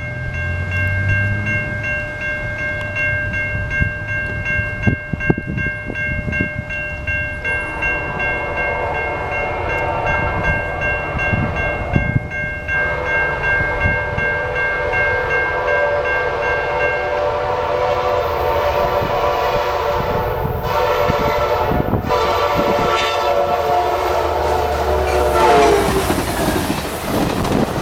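Amtrak passenger locomotive horn blowing long multi-note chord blasts, with short breaks between them, over the rumble and wheel clatter of the approaching train. Near the end the horn chord drops in pitch as the train passes by.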